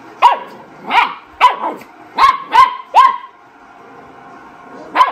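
Dogs barking in play: about six short, sharp, high barks in quick succession over the first three seconds, then a pause before another bark at the end.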